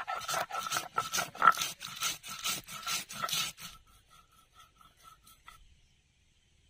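Stone grinding slab and stone roller (shil-nora) crushing dry whole cumin, coriander seeds and bay leaves: quick, rhythmic scraping strokes of stone on stone, about four a second, that stop a little over halfway through, leaving a few faint ticks.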